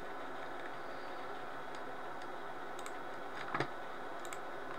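A few faint computer mouse clicks over a steady low hiss, the clearest about three and a half seconds in.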